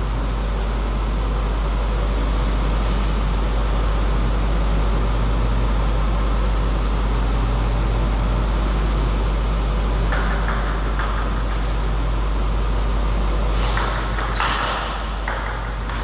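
Steady low hum and air noise of an indoor hall. Near the end come a series of sharp light clicks: a table tennis ball striking the table and bats as a rally begins.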